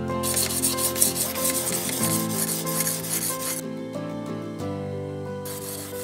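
A sharpening stone rasping along a steel knife blade in a guided sharpening jig. The strokes stop about three and a half seconds in and start again near the end, over background music.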